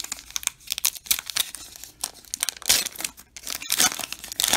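Foil wrapper of a 2021 Topps Heritage baseball card pack crinkling and tearing as it is opened by hand: a quick run of sharp crackles and rustles, loudest about two and a half seconds in and again near the end.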